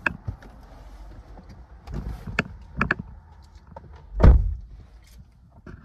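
Someone getting into a car: scattered clicks and knocks of handling, then the car door shutting with a heavy thump about four seconds in.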